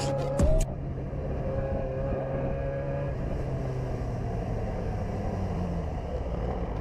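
Motorcycle engine running under way, with rushing wind noise on the onboard camera. The engine's steady note drops away about three seconds in as the bike slows.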